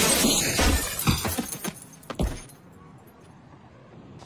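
A glass window shattering as a body crashes through it: a sudden loud smash, then broken glass tinkling and crackling for about a second and a half. A little over two seconds in comes a single heavy thud of the body landing on pavement.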